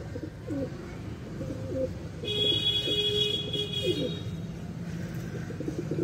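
Domestic pigeons cooing: low, wavering calls repeating throughout. About two seconds in, a high steady tone sounds for nearly two seconds over them.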